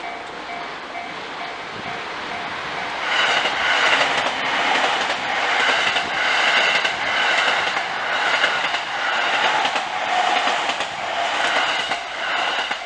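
Train passing through a level crossing, its wheels clacking rhythmically over the rail joints. It swells in about two seconds in, stays loud for about nine seconds and drops away near the end, drowning out the crossing's pulsing two-tone warning alarm, which is heard before and after it.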